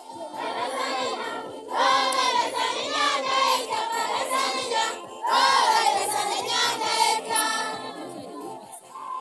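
A group of voices singing together, with louder sung phrases starting about two seconds in and again about five seconds in, then fading near the end.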